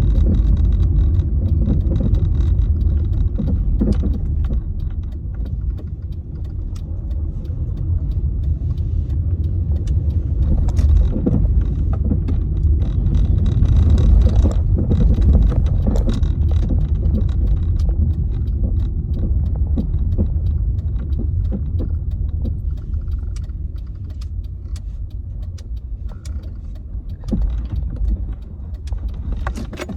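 Car road noise heard from inside the moving car: a steady low rumble with faint light rattling clicks, easing off somewhat after about twenty seconds.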